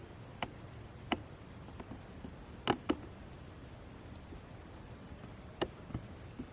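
A few sharp clicks and taps, spaced irregularly, with two close together near the middle, over a steady low hiss.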